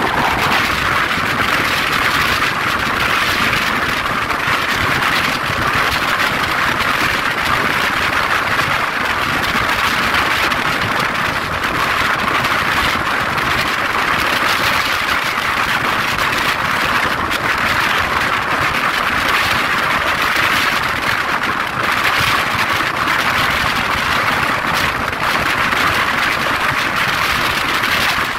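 Passenger express train running at speed, heard from on board: a loud, steady rush of wind and wheel-on-rail noise.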